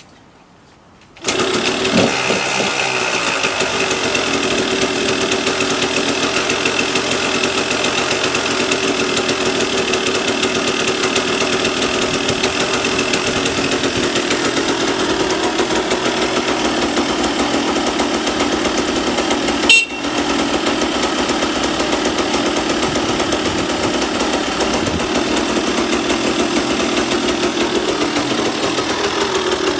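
Yamaha DT200WR's two-stroke single-cylinder engine kick-started, catching about a second in and then running steadily, with a brief sudden blip and dip about two-thirds of the way through.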